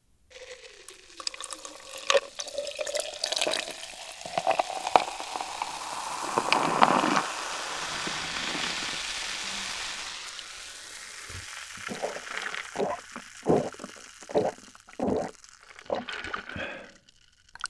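Cola poured into a glass jar-mug, the pitch of the stream rising steadily as the mug fills, then carbonated fizzing that fades away. Near the end, several short separate sounds follow.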